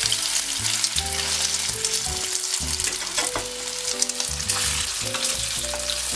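Boiled potato pieces sizzling and crackling as they slide into hot mustard oil with cumin seeds and bay leaves in a frying pan, then stirred near the end.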